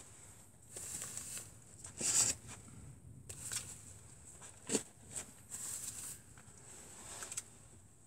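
Wooden arrows being pulled out of a foam block target and gathered in the hand: a series of short scraping and rustling pulls, with a sharp tick just before five seconds in.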